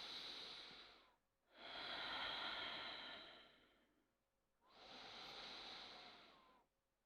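A person's slow, deep breaths, each about two seconds long with short pauses between: three breaths, and a fourth starting at the very end.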